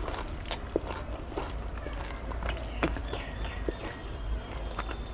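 Eating by hand: chewing, with scattered sharp clicks and scrapes as fingers mix rice and curry on a steel plate.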